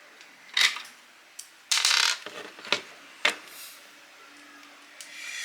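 A few sharp clicks and a short scrape of small metal and plastic parts being handled, as the HDZero VRX receiver is reassembled.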